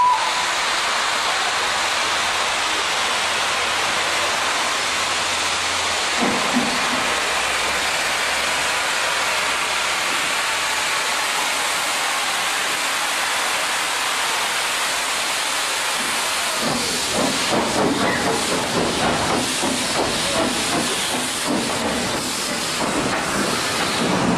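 Steam locomotive standing at the platform, venting steam with a loud, steady hiss. Rougher, uneven noise joins in about two-thirds of the way through.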